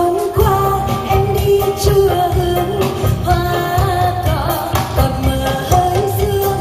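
A female singer performing a Vietnamese song live with an amplified band, electric guitar and a steady drum beat, heard through the stage PA from within the crowd.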